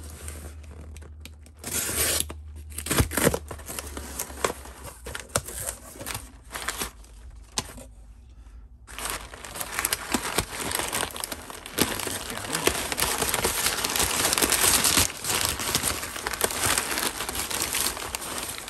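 A cardboard shipping box being slit and torn open, with the taped flaps ripping in short bursts over the first several seconds. Then comes steady crinkling and rustling as crumpled kraft packing paper is pulled out of the box.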